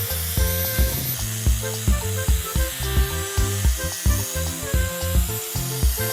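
Background music with a steady beat of about two thumps a second and a stepping bass line.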